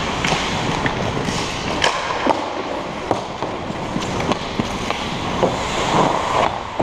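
Ice hockey play: skate blades scraping and carving on the ice, with frequent sharp clacks of sticks and puck.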